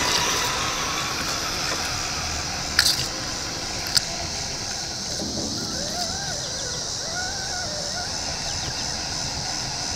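Whine from the RC rock crawler's electric motor and gear drivetrain, wavering up and down as the throttle changes, over a steady high-pitched hiss. Two sharp clicks come about three and four seconds in.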